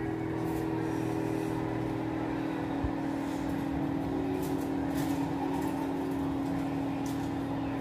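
Steady mechanical hum of a running motor, with a few faint light clicks as metal cookie cutters are handled.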